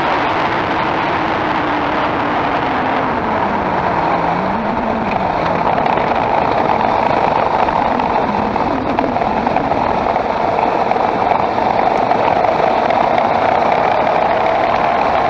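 Skoda Octavia's 1.8 TSI turbo four-cylinder with DQ200 seven-speed DSG running, a steady engine and drivetrain noise whose low pitch sags and rises a few seconds in.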